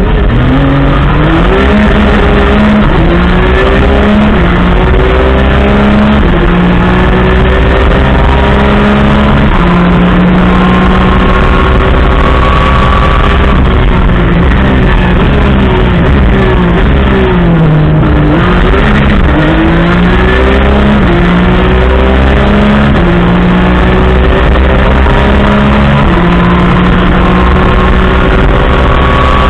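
Porsche 991 GT3 Cup's 4.0-litre flat-six on straight exhaust pipes, heard from inside the cabin, pulling hard: the revs climb in repeated rising sweeps, each cut off by a quick upshift. About halfway through the pitch falls in quick steps as it changes down, then it pulls up through the gears again.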